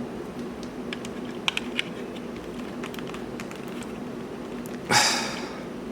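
Small clicks and taps of a USB cable plug being fumbled into a port on a plastic USB hub, over a steady low hum, with a short rustling rush about five seconds in.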